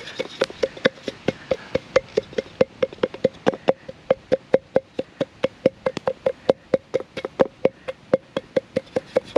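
A willow stick pounding into a Vargo BOT titanium pot in a steady rhythm of about five knocks a second, each knock briefly ringing the pot. The stick is mashing cooked green pear down into a puree.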